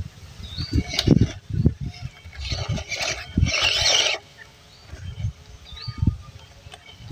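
MN99S 1/12-scale RC crawler climbing over a log: its small 260 brushed motor and gears whirring in short bursts, tyres scrabbling on bark and dirt, and the wheels and chassis knocking against the wood. The loudest scrabbling comes in the middle and lasts about a second and a half.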